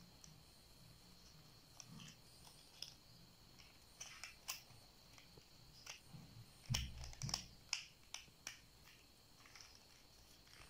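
Faint clicks and snaps of small plastic interlocking toy bricks being handled and pressed together, scattered at first, then a quick run of them in the middle with a dull knock among them.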